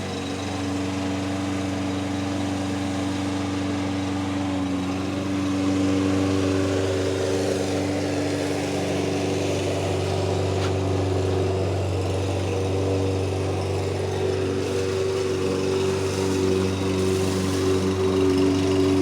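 An engine running steadily, with a constant droning hum.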